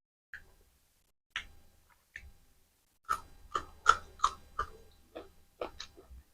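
Close-miked eating: wet mouth clicks and smacks while chewing mutton curry and rice. A few single clicks come first, then a quick run of about three smacks a second from about three seconds in.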